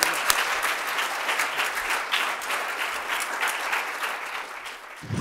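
Audience applauding, a roomful of people clapping, dying away near the end.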